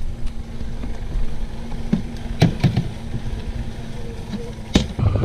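Suzuki outboard motor idling with a steady low hum. A few sharp knocks on the boat come about halfway through, and the loudest comes near the end.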